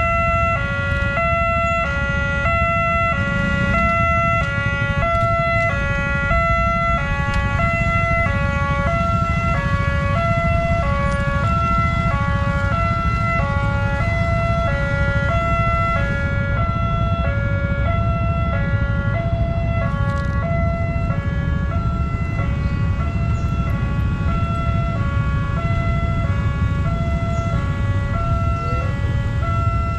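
Railway level-crossing warning siren sounding continuously, stepping back and forth between a higher and a lower note, warning that a train is coming and the barrier is closed. A steady low rumble runs beneath it.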